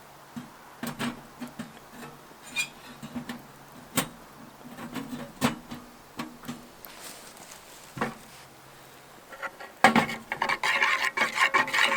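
Scattered clicks and knocks of cooking in an aluminium mess tin on a small wood stove, then near the end a loud, rapid clatter of a utensil stirring and scraping in the tin.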